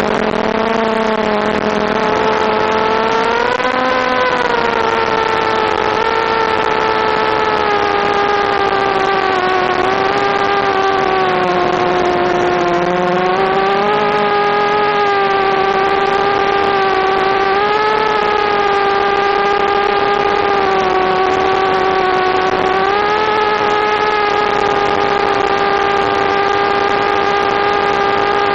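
Mini quadcopter's Suppo brushless motors and propellers whining in flight, the pitch rising and falling gently with throttle over a steady hiss.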